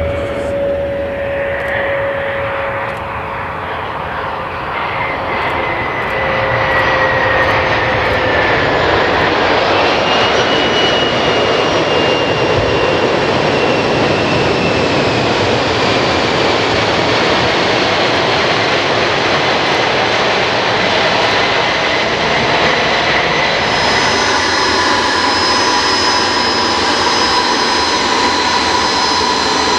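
Bombardier Challenger business jet's twin rear-mounted turbofans on the landing roll: a broad rushing jet noise that grows louder about six seconds in, with whine tones gliding down in pitch as the jet slows. Near the end it settles into a steadier, high-pitched engine whine.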